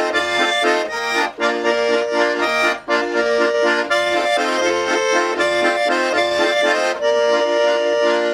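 Two Schwyzerörgeli (Swiss diatonic button accordions) playing a Swiss folk tune together, chords over a steady bass pulse. The piece closes on a long held chord that stops near the end.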